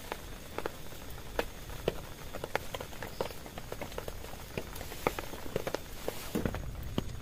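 Irregular taps of raindrops or drips striking a tent, several a second and uneven in strength, over a faint steady hiss of rain.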